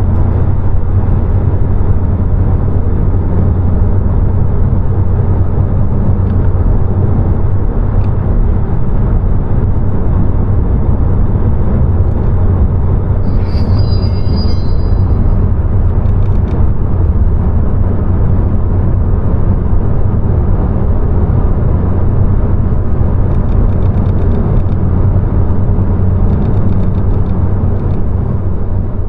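2020 Honda Civic Si's turbocharged four-cylinder engine running at a steady pace, with tyre and road noise, giving a low, even drone. It fades out near the end.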